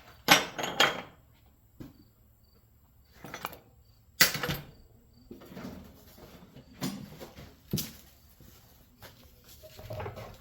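Irregular knocks and clinks of metal scrap parts, copper contact blocks from a motor starter, being handled and set down on a workbench. The loudest come just after the start and about four seconds in.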